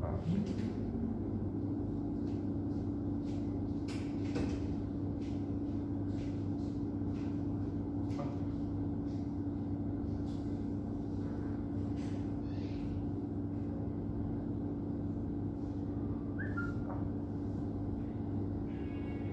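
A steady machine hum, like a small electric motor running, that settles in after a short rising whine in the first second, with a few faint clicks.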